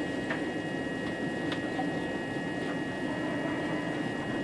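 Inside a moving electric passenger train: steady running noise of wheels on the rails, with a constant high whine and a few faint clicks.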